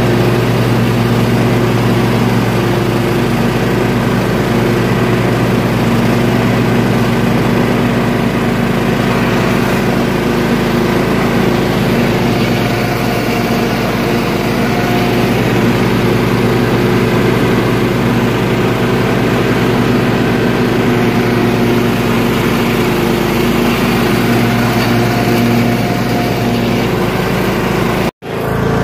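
Toro riding lawn tractor's engine running steadily at mowing speed while its deck cuts tall, thick grass. The sound drops out for an instant near the end.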